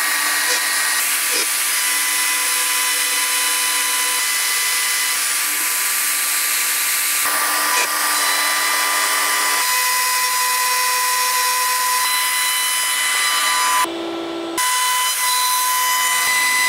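Shaper Origin handheld CNC router spindle running at high speed with a steady whine, its engraving bit cutting lettering into a wooden slab. The sound dips briefly, for under a second, about 14 seconds in.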